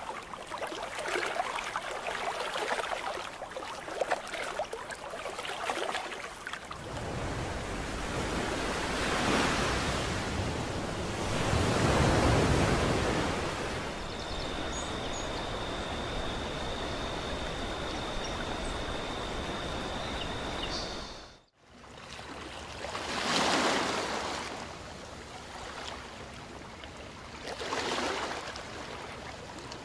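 Rushing water and surf rising and falling in slow swells, with a thin steady high tone for several seconds in the middle. The sound drops out abruptly about two-thirds through, then the swells of water return.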